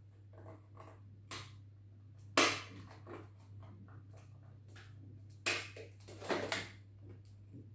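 Clicks and clatter of a plastic makeup set being handled while eyeshadow is picked out: a few sharp knocks, the loudest about two and a half seconds in and another cluster near the end, over a low steady hum.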